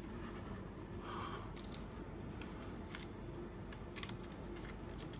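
Faint scattered clicks and soft rustling from a Sony A6000 mirrorless camera body being handled in the hands.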